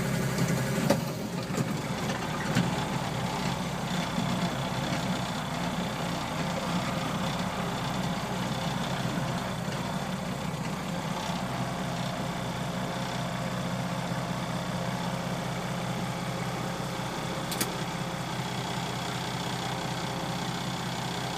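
Farm tractor engine running steadily, heard from inside the cab, with a sharp click about three-quarters of the way through.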